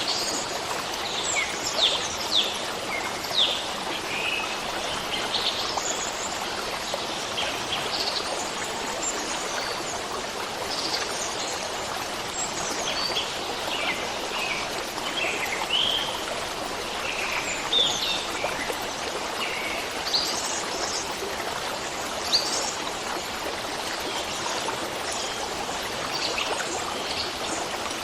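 Stream water running steadily, with small birds chirping throughout.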